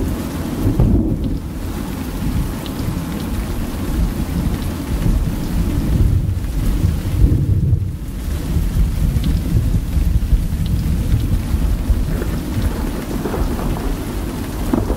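Recorded thunderstorm sound effect: steady rain with low, rolling thunder.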